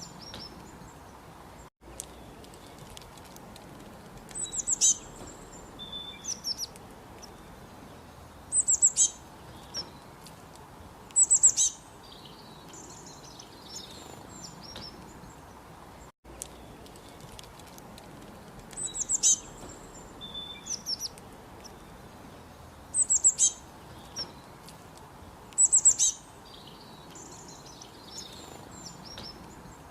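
Songbirds chirping in short, sharp clusters of high notes a few seconds apart, over a steady background hiss. The same run of calls plays twice, the second time starting about halfway through.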